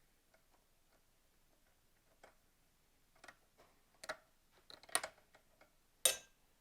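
Scattered faint clicks and taps of small hand-tool work with screws and metal parts, with three sharper clicks about four, five and six seconds in.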